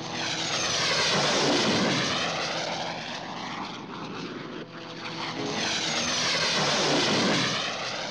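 Aircraft flying past overhead twice, a cartoon sound effect. Each pass swells and then fades as a sweeping whoosh over about four seconds, and the second begins about halfway through.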